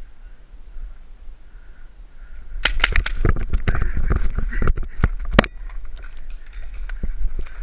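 A rapid clatter of knocks and thumps, densest for about three seconds starting a third of the way in, with a loud bang near the end of that run. It comes from a paintball player scrambling out from a bunker and running on gravel, his gear and footfalls jolting the head-mounted camera. Scattered knocks follow.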